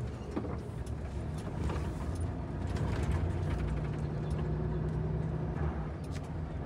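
Volvo FH timber truck's diesel engine running steadily as the truck drives along, a low even hum with a few faint rattles.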